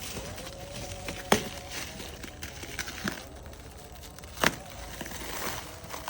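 Packaging being handled while unboxing a pressure washer: rustling, crinkling and handling noise with two sharp knocks, one about a second in and one about four and a half seconds in.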